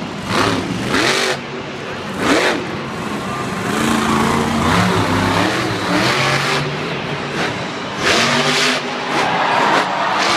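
Monster truck's supercharged V8 engine revving hard in repeated throttle bursts during a freestyle run, its pitch rising and falling with each burst.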